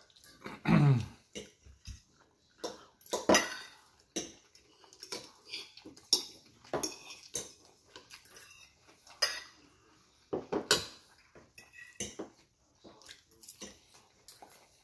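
Metal fork scraping and clinking against a ceramic plate as food is scooped up, in a string of short separate scrapes and taps. A short low falling sound comes about a second in.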